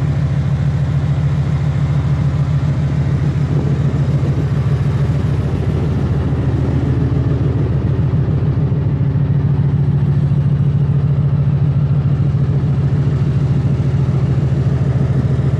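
Supercharged Ford F-150 V8 idling steadily, a deep, even engine hum.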